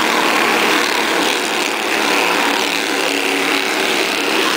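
A pack of Bandolero race cars running at racing speed on a short oval, their small single-cylinder engines giving a steady, high-pitched buzz as they pass.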